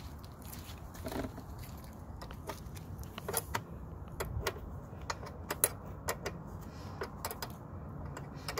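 Small wrench clicking against the steel tie rod of an electric ATV as the rod's adjuster is turned bit by bit to set the front wheel's alignment. The clicks come irregularly, several a second, over faint low background noise.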